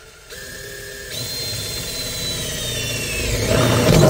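Power drill boring a hole through a car's floor pan. The motor whine sags slightly in pitch under load, grows louder and rougher near the end, and stops suddenly once the bit is through.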